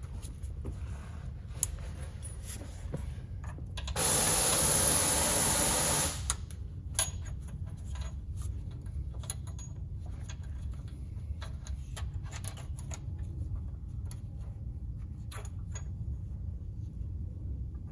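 Light metal clicks and scrapes as a Spoon rigid collar is worked by hand up into a Honda Prelude subframe bolt hole, over a low steady shop hum. About four seconds in, a loud steady hiss lasts about two seconds and then cuts off sharply.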